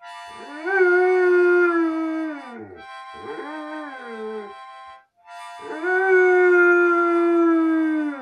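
German Shepherd howling along to a harmonica's held chord: a long howl that rises and then slowly sinks, a shorter wavering howl, then a second long howl.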